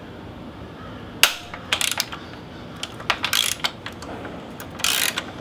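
Hand ratchet with a 14 mm socket and extension clicking in several short runs, starting about a second in, as the nut on the rear shock's top mount bolt is backed off.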